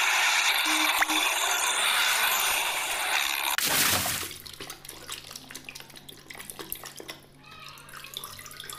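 Water rushing steadily for about the first three and a half seconds, then much quieter, irregular splashing and sloshing as hands scrub a plastic toy in a basin of soapy water.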